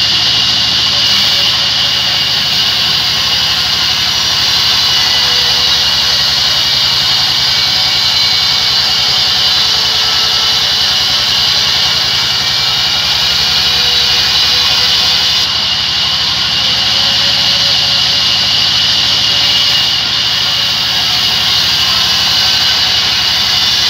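Large vertical band saw ripping a log lengthwise. It makes a loud, steady high hiss of the blade cutting through the wood over a low hum from the drive.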